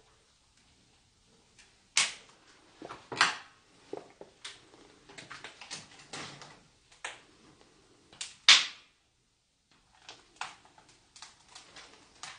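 Footsteps crunching and knocking over a debris-strewn floor: irregular sharp clicks and knocks, the loudest about two, three and eight and a half seconds in.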